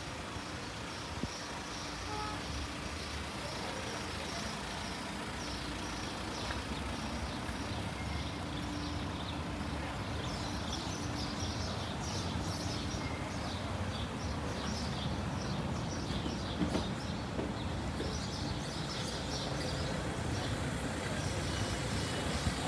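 City street ambience: a steady rumble of traffic, with many short high chirps in the middle stretch.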